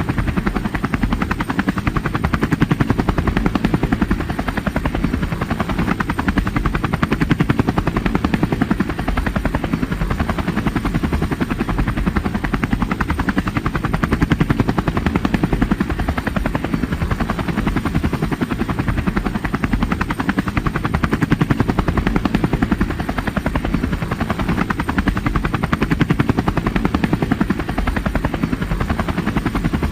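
Helicopter in flight, its rotor blades chopping in a fast, even beat over a steady turbine and engine drone.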